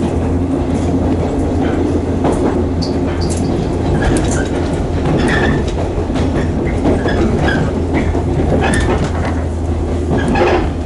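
Electric commuter train running, heard from inside the passenger car: a steady low rumble and hum, with irregular clicks from the wheels on the rails and brief high squeaks.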